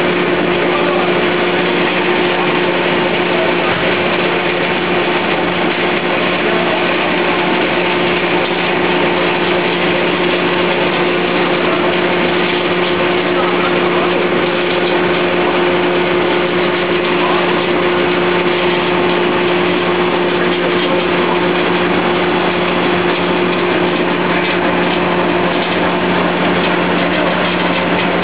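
Pet food production line machinery running steadily, with a chain-driven mesh-belt conveyor among it: a constant mechanical noise over a steady low hum.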